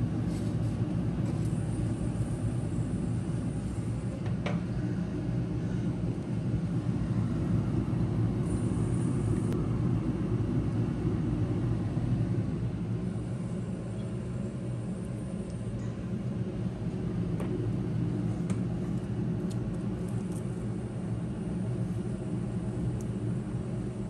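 Steady low rumble of a running machine, such as a kitchen extractor fan, with a few faint clicks of a metal spatula against a plate.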